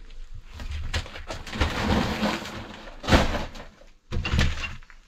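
Knocks and scraping from bathroom strip-out work as a wooden cabinet door is handled among tile rubble, with a loud thump about three seconds in and more knocks a second later.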